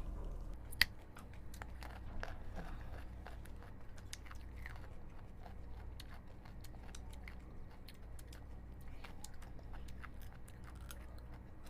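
People chewing hard raw carrots: a steady run of small crisp crunches, with one sharp, loud crunch about a second in.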